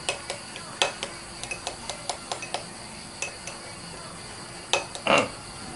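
Metal spoon clinking against a small ceramic bowl as it stirs chili paste (nam prik pao): a string of light clinks, then a louder knock about five seconds in.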